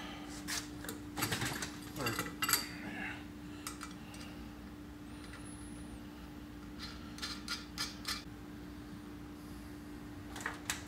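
Small metal clinks and clicks as steel bolts and washers are fitted into a pinion-yoke holding tool on a differential's pinion yoke, coming in scattered groups, over a steady low hum.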